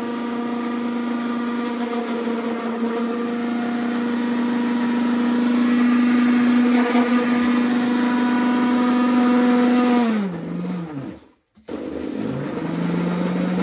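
Electric mixer grinder (mixie) running steadily, grinding a dry roasted mix to powder. About ten seconds in it is switched off and winds down with falling pitch, stops for a moment, then starts again and runs at a lower pitch.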